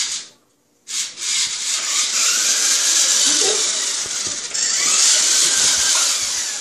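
Toy radio-controlled monster truck's electric motor and gears whirring as it drives across a tile floor: a short burst at the start, then a steady run from about a second in that dies away at the end.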